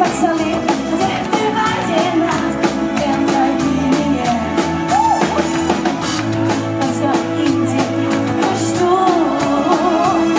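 Live pop band playing with a steady drum beat while a woman sings lead into a microphone.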